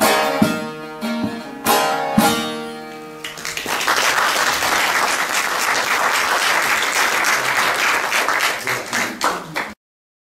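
Bağlama (long-necked Turkish saz) strumming a few final chords that ring out to end a song, followed by audience applause starting a little over three seconds in and cutting off abruptly near the end.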